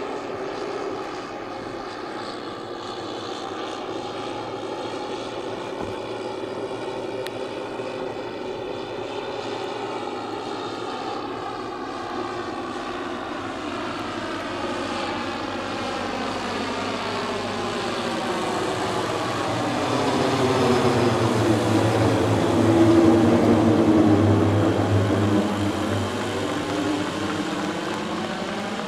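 Twelve 10 cc four-stroke O.S. model engines of a large radio-controlled Dornier Do X flying-boat model running together in flight, a steady multi-engine propeller drone. It grows louder about two-thirds of the way through as the model flies close, then eases off a little.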